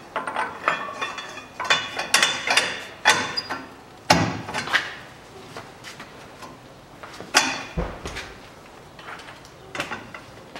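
Sharp metal knocks and clanks, some briefly ringing, as a socket and bar are worked on the front drive-shaft nut of a Ford Ranger's hub to tighten it. There is a quick run of knocks at first, then two loud single clanks about four and seven seconds in.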